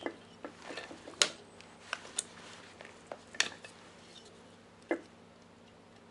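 Sharp metallic clicks and clinks of tools and clip leads handled on a workbench, four louder ones about a second apart, over a faint steady electrical hum. The horn itself stays silent.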